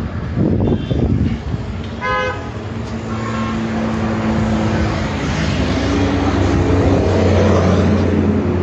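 Road traffic noise with a vehicle horn tooting briefly about two seconds in, then a steady low hum that grows stronger toward the end.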